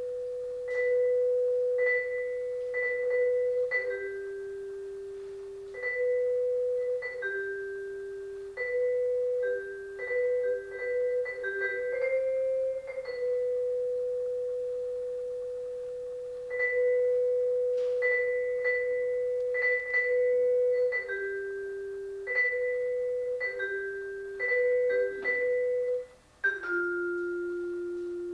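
Vibraphone played by two players in a slow melody of single struck notes, mostly moving between two neighbouring pitches. Each note rings long and is cut off cleanly as the next one sounds. Near the end the sound stops briefly, then a lower note is struck and left ringing.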